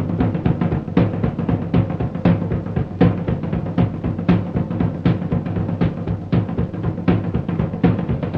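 Background music: a drum-led passage with a steady beat over low sustained bass notes.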